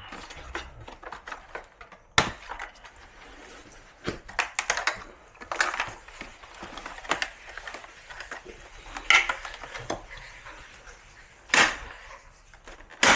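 Irregular sharp clicks, knocks and light rattles of hard plastic parts being handled and unclipped while an air conditioner is taken apart. The loudest snaps come at about two seconds in, near the end, and at the very end.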